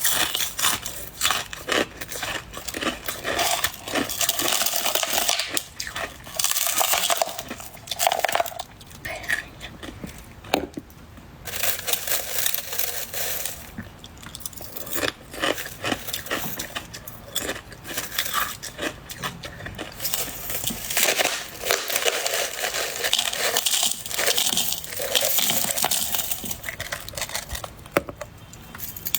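Soft white shaved ice (freezer frost) being bitten and chewed: runs of crisp crunching and crackling, broken by a few short pauses.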